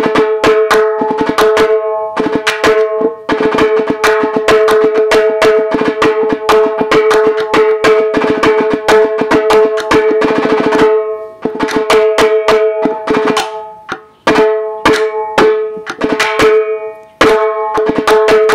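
Tom drum used as a snare, its head tightened for a sharp sound, played hard with sticks in fast strokes and rolls. Each stroke rings at the same clear pitch, with short breaks about 11 and 14 seconds in.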